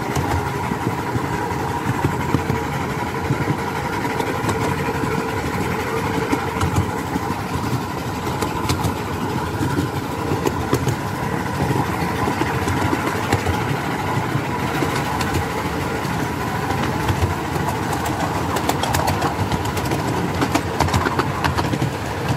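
Miniature-railway steam train running along the track, heard from the carriage behind the engine: a steady mechanical running noise with the wheels clicking and clattering on the rails.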